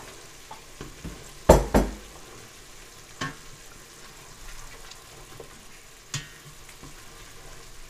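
A spoon stirring hot salted water in a steel pot on the stove, over a faint steady hiss from the hot liquid. The spoon knocks against the pot twice about a second and a half in, and more lightly a couple of times later.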